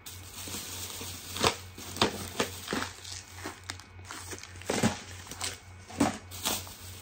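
Plastic packaging crinkling and rustling as it is handled, in uneven spurts with a few sharper crackles.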